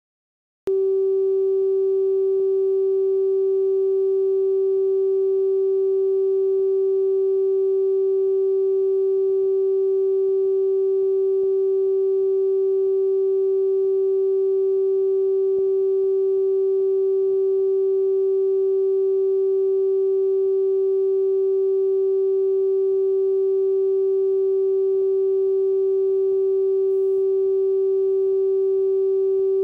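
Steady reference test tone of the colour-bar leader on a videotape: one unchanging pitch a little below 500 Hz, cutting in suddenly under a second in.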